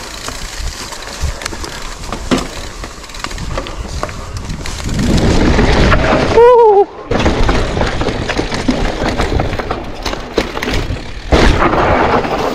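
Wind buffeting an action camera's microphone and a mountain bike rattling and knocking over a rough trail while riding. About six and a half seconds in, a short wavering tone sounds as the wind noise briefly drops away.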